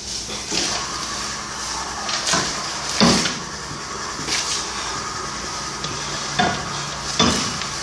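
Scattered short knocks and clinks at a fireplace as paper is fed into a small wood fire, about seven over several seconds, over a steady hiss.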